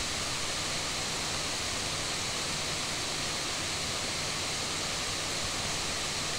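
Steady background hiss with a faint low hum, unchanging throughout: room tone and microphone noise, with no distinct events.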